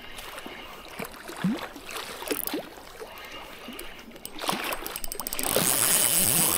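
Sea water washing and trickling against shoreline rocks, with scattered light clicks and a quick run of fast ticks. Near the end a louder steady rush of noise sets in.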